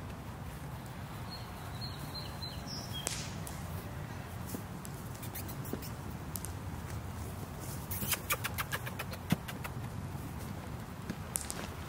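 Backyard outdoor ambience: a steady low rumble, a few faint high chirps about two seconds in, and a quick run of sharp clicks about eight seconds in.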